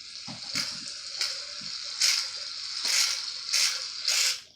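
Aerosol shaving-cream can spraying foam: a continuous hiss that swells in several surges and cuts off near the end, with a few soft knocks about half a second in.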